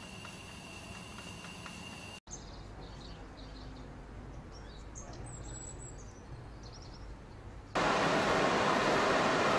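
Carbon fibre winding machinery running with a steady hum and a thin high whine, cut off abruptly after about two seconds. Then a quieter stretch with a low rumble and faint bird chirps, and about eight seconds in, a sudden loud, even rushing noise of factory hall ventilation and machinery.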